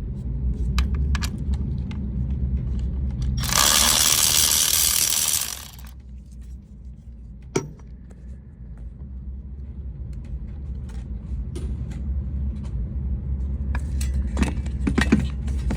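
Metal parts and tools being handled, with scattered light clinks and clicks and one sharp clack, over a low steady rumble. A loud rushing hiss lasts about two seconds a few seconds in.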